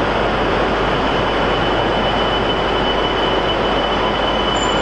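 Shinkansen bullet train at the platform: a steady, loud rush of noise with a thin high whine running through it.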